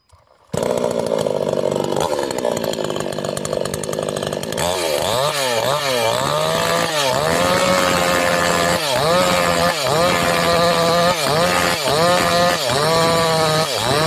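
Petrol chainsaw engine comes in suddenly about half a second in and runs steadily. From about four and a half seconds it is revved up and down over and over, its pitch dropping and climbing back a little more than once a second, with the bar held above the stump.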